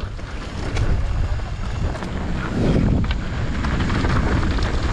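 Wind rushing over the camera's microphone and the mountain bike's tyres rumbling over a dirt trail at speed, with a few sharp clicks and rattles from the bike.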